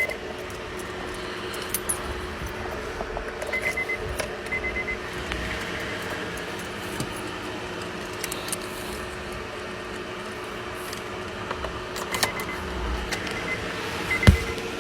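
Car keys jangling and clicking as a key is handled at the ignition, with a sharp click near the end. Short groups of rapid high beeps sound now and then over a steady low hum.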